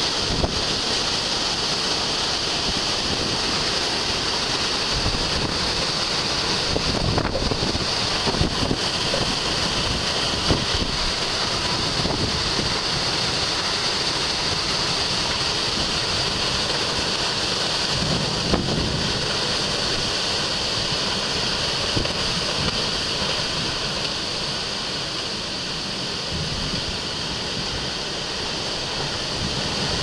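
Thunderstorm with driving rain and high wind: a steady, dense hiss of heavy rain with gusts rumbling on the microphone, easing a little near the end.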